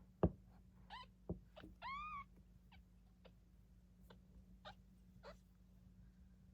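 A sharp knock, then high-pitched mewing from a nine-day-old kitten: one short mew about a second in and a longer mew that rises and falls at about two seconds, with a second knock between them and a few faint squeaks later.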